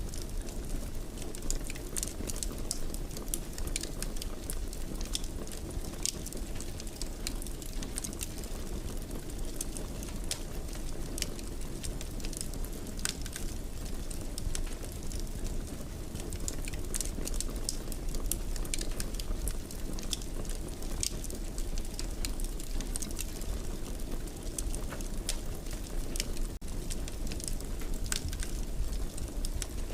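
Wood fire crackling in a fireplace: a steady low rush of burning with frequent sharp pops and snaps at irregular intervals.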